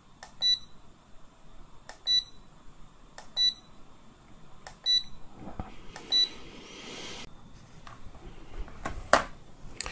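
Miniware MHP50 hot plate beeping at each button press as its settings menu is stepped through: five short high beeps, each with a faint click, about every second and a half. A single sharp knock follows near the end.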